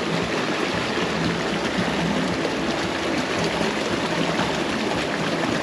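Mountain creek rushing steadily over rocks.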